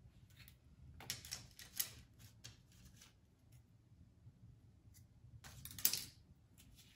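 Faint rustling and crinkling of a punched paper stocking being handled as yarn is threaded through its holes, in short bursts about a second in and again, loudest, about six seconds in.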